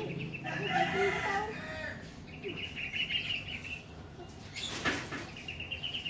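Lovebird chick making fast, chattering begging calls in three bouts while it is fed from a syringe. A short noise breaks in just before five seconds.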